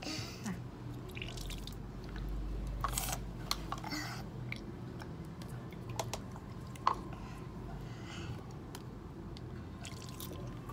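Scattered drips and small clicks as a plastic syringe is filled with saline from a plastic cup over a bathroom sink for a child's nasal rinse.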